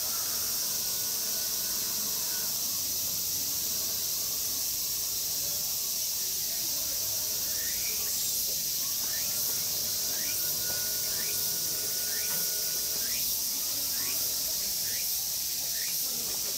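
A chorus of insects droning steadily at a high pitch. From about halfway, a short rising chirp repeats roughly once a second above it.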